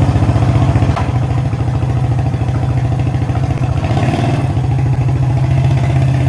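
1990 Suzuki Quad Runner LT-F250's single-cylinder four-stroke engine running steadily just after starting, with a small click about a second in.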